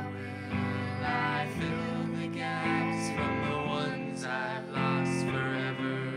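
Live electric guitar playing sustained, effects-laden chords that change every second or two, with a voice singing over them.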